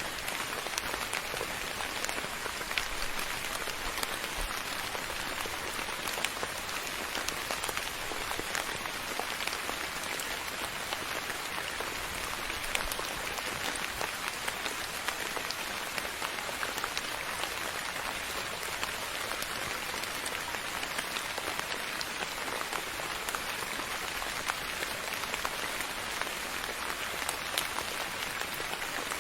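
Steady soft rain falling, a constant hiss sprinkled with fine individual drop clicks.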